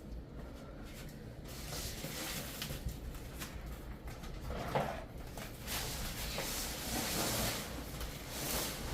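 Rustling and bumping as flooring underlayment padding is handled and laid out, with a knock about five seconds in.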